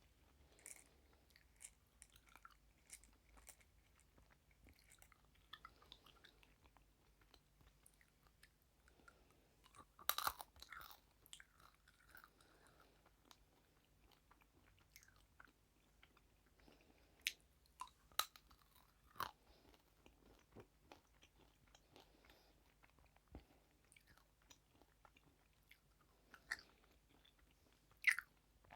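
A person chewing and crunching food close to the microphone, with scattered soft mouth clicks and crackles. A louder crunchy bite comes about ten seconds in, and a few sharp single crunches come later.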